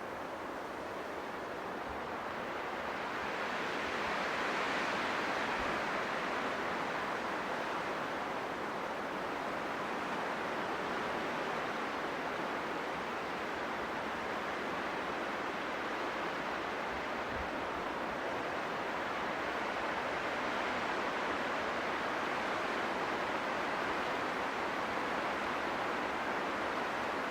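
Wind blowing through trees: a steady rushing that swells into a gust about five seconds in and again after about twenty seconds.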